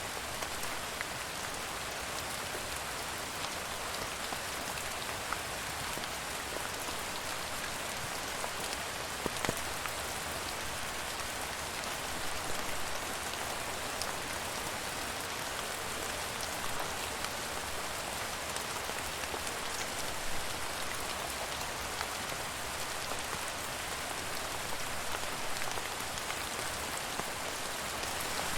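Steady rain falling on a surface: an even hiss with many sharp individual drop ticks scattered through it.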